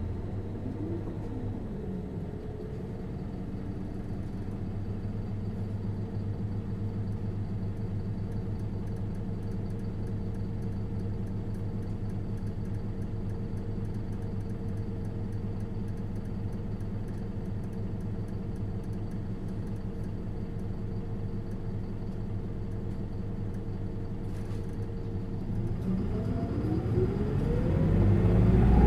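Four-cylinder diesel engine of an Isuzu Erga LV290N1 city bus heard from inside the bus, idling steadily. Near the end it revs up with a rising pitch and grows louder as the bus accelerates away.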